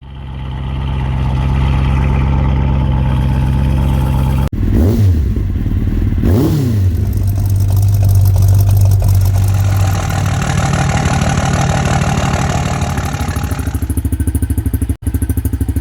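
Car engine idling steadily, then revved in two quick blips about five and six and a half seconds in, each rising and falling in pitch, before settling back to a steady run. The sound breaks off abruptly twice, about four and a half seconds in and near the end.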